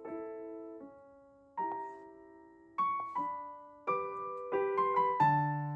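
Background piano music: separate notes and chords struck every half second to a second, each ringing and fading. The notes come closer together toward the end, and a low bass note joins about five seconds in.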